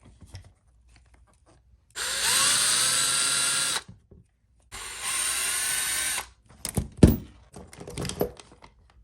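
Handheld power driver backing out chassis screws on an RC truck: two runs of about a second and a half to two seconds each, the motor's pitch rising as each starts. Then a few sharp clicks and knocks.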